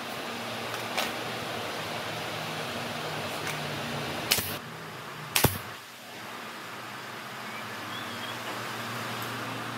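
Steady low workshop hum with scattered clicks and two short, sharp knocks about four and a half and five and a half seconds in, from hand work on the wooden car body's side panel.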